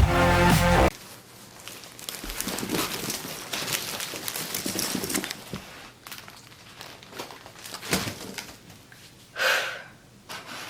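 Intro music cuts off about a second in, then irregular crinkling and rustling, like something being handled, with scattered small clicks and a short breathy sound near the end.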